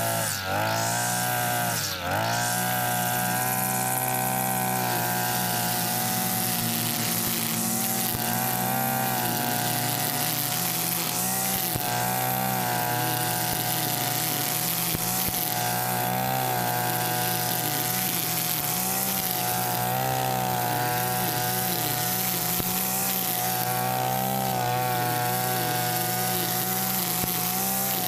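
Mitsubishi backpack brush cutter engine running at high revs, its nylon line head spinning through tall grass. The revs dip twice in the first couple of seconds, then hold steady.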